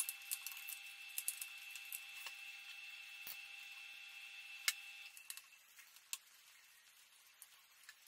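Faint scattered clicks and taps from a 2.5-inch SSD being seated in a laptop's drive bay and its small retaining bracket fitted by hand and screwdriver. A faint steady high whine stops about five seconds in.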